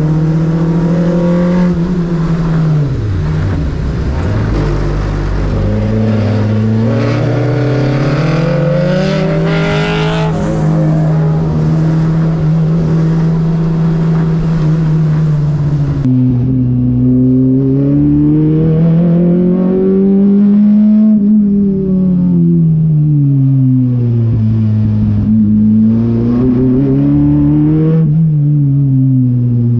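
Modified race car's engine heard from inside the cabin while lapping a wet circuit. It holds steady revs with a brief drop a few seconds in. About halfway the sound changes abruptly, and from then on the engine rises and falls in pitch several times.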